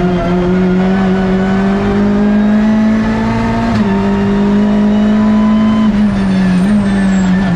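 Hyundai i30 N TCR race car's turbocharged 2.0-litre four-cylinder engine heard from inside the cockpit. It accelerates with the revs climbing steadily. The revs drop briefly about four seconds in, climb again, then dip twice near the end.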